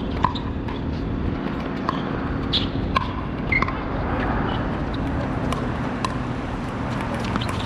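Pickleball paddles hitting a plastic pickleball in a doubles rally: a string of short, sharp pocks at uneven spacing, roughly one every half second to a second, over a steady low background rumble.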